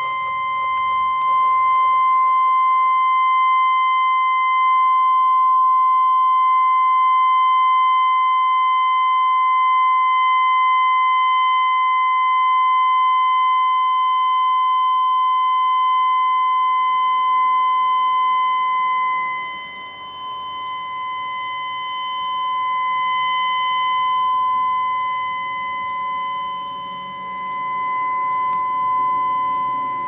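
Federal Signal 612 six-horn rotating tornado siren sounding a steady single-tone alert in a test, insanely high-pitched with no rise or fall in pitch. For about the first nineteen seconds it is loud and even; then it dips and swells twice as the slowly turning horns sweep away from and back toward the listener.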